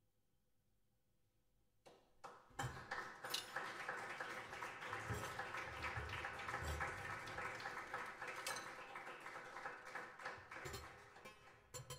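Strings inside a grand piano worked by hand: a near-silent pause, then from about two and a half seconds in a dense, continuous rattling and clicking with occasional low thuds.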